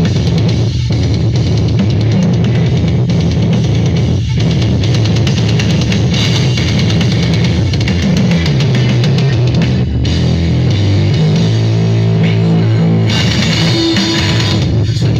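Loud rock music with guitar and drums and very heavy bass, played through a large sound-system rig.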